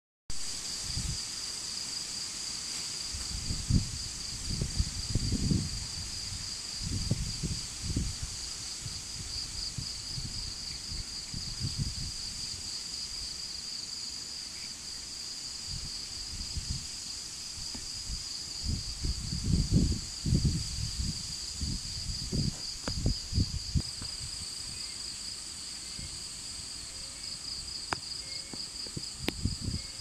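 Strong, gusty wind buffeting the microphone in irregular low rumbling bursts, heaviest around five seconds in and again around twenty seconds in. Under it a steady, high-pitched pulsing trill from a chorus of insects.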